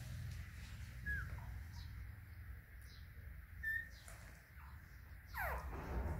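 Week-old puppies give a few short, high squeaks and, a little after five seconds, a longer whimper that falls in pitch, over a steady low hum.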